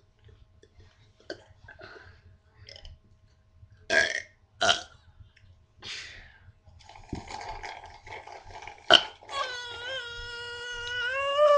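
A person burping: a few short loud burps, then a sharp click and one long drawn-out burp of about three seconds near the end, held at one pitch and rising slightly before it stops.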